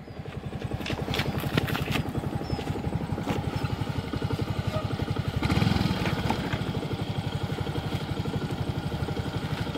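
Small motorcycle engine running at a steady idle with a fast even putter, swelling briefly about halfway through. A few light clicks and knocks come early on.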